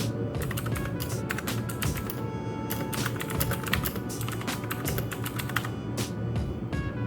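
Typing on a mechanical keyboard: rapid runs of clicky keystrokes with a few short pauses, over background music.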